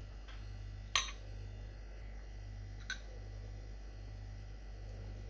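Metal spoon stirring cornflour and water in a small glass bowl, with two sharp clinks of spoon against glass, about a second in and again near three seconds, over a steady low hum.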